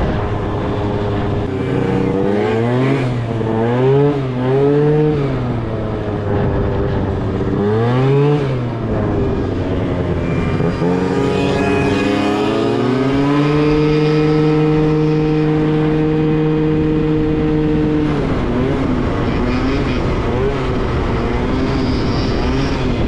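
Small scooter engine under way, its pitch swinging up and down several times as the throttle is worked, then climbing and holding one steady pitch for a few seconds at cruising speed before wavering again.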